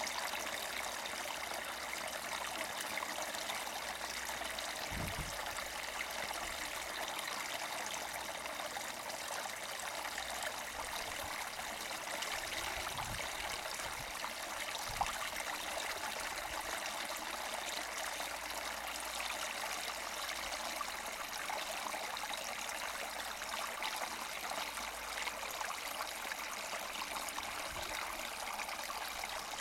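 A small spring-fed mountain brook gurgling and trickling steadily over its bed.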